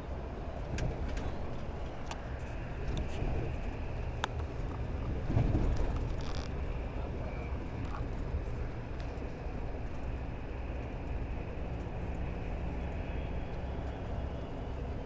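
Steady running rumble of a moving road vehicle heard from inside the cabin, with a few light clicks and rattles and a louder bump about five seconds in.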